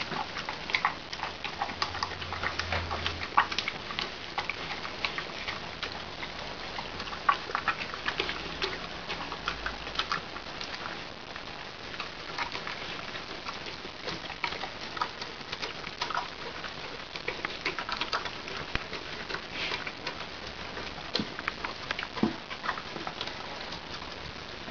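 A dog and a cat eating together from one stainless steel bowl: a steady run of small irregular clicks and smacks of chewing and lapping, with now and then a sharper tick against the bowl.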